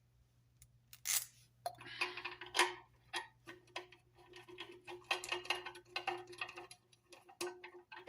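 Rapid small clicks and taps as the metal stand and fittings of a glass corner shelf are worked into place against the glass, over a faint steady hum.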